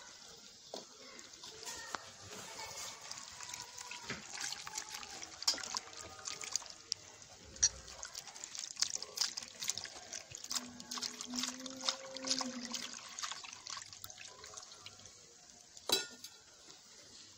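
Liquid poured from a steel cup into a steel plate of gram-flour batter while a bare hand mixes it, giving continuous wet splashing and squelching with many small crackles. There is a sharp knock near the end.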